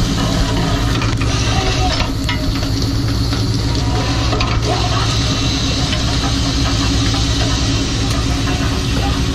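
Fishing boat's engine running with a steady low hum, under a constant rushing hiss of wind and water.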